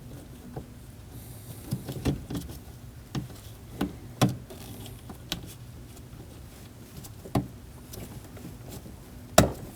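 Irregular light plastic clicks and knocks as a latch cable's end and tabs are worked into a car door latch, with a sharper knock near the end.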